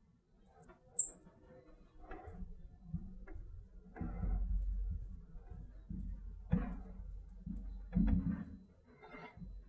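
Marker squeaking in short, high chirps on lightboard glass as symbols and a word are written: a few sharp squeaks about half a second to a second in, then a run of them from about four and a half to eight and a half seconds in, with faint low knocks of the pen and hand against the glass.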